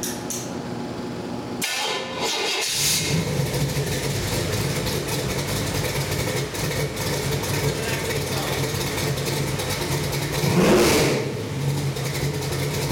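Chevy 383 stroker small-block V8 with a Holley carburettor being started on the stand, catching about two to three seconds in and then idling steadily. Near the end a single throttle blip revs it up and lets it fall back to idle.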